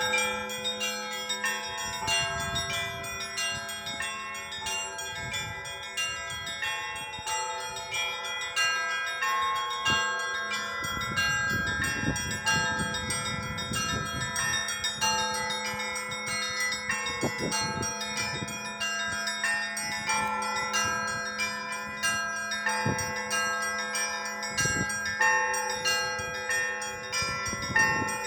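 A set of bells rung together in a continuous peal: many smaller bells chime over a steady deep hum, with occasional heavier strokes.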